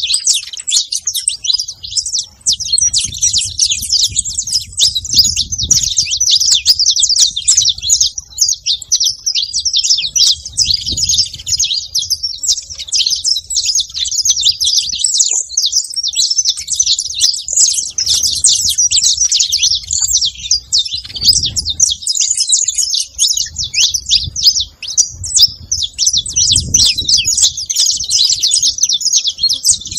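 Dense, continuous chirping and twittering of a flock of many saffron finches calling together, the calls overlapping without pause. A low rumble comes and goes underneath.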